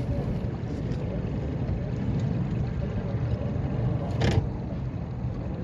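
Steady low rumble of a boat's engine and wind on the water, with a brief louder rush about four seconds in.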